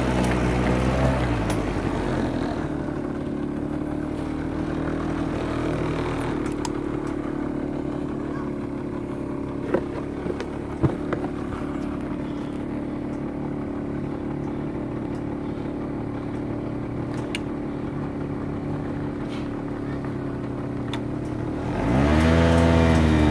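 Quad bike engine revving up and down for the first couple of seconds, then idling steadily, with a few sharp knocks about ten seconds in. Near the end an engine revs up and down loudly again.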